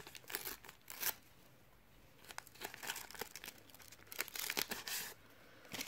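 A shiny Panini Calciatori sticker packet being torn open and crinkled by hand: faint, irregular crackles of the wrapper, with a short pause in the first half.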